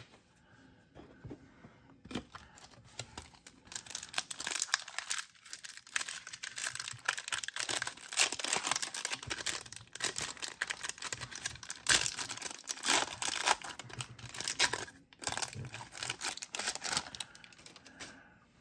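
Foil wrapper of a 1991 Upper Deck football card pack crinkling and tearing as it is opened by hand. The crackling begins about two seconds in, with a brief pause near the end.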